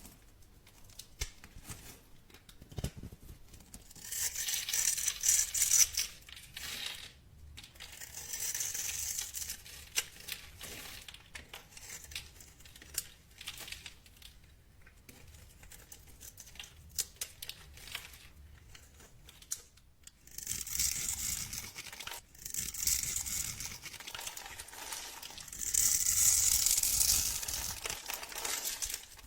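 Dry soap being cut and crumbled, crackling in several bursts of one to three seconds with scattered small clicks between.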